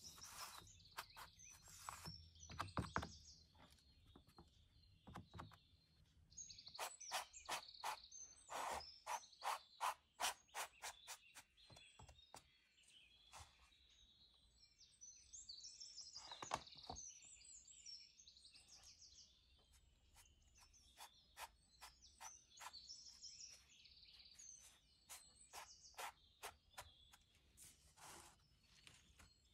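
Faint birds chirping, with runs of quick sharp taps, densest for a few seconds near the middle.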